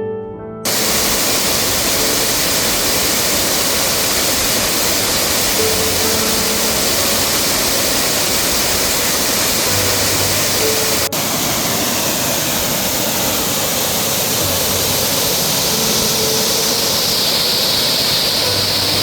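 Waterfall rushing loud and steady, starting abruptly under a second in, with a brief break about eleven seconds in.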